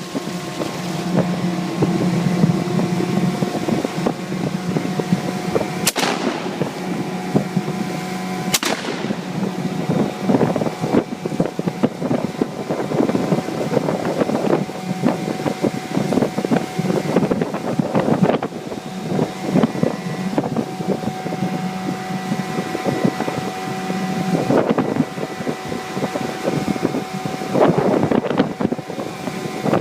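Two 12-gauge shotgun shots about two and a half seconds apart, over a Mariner 15 outboard motor running steadily, with wind on the microphone.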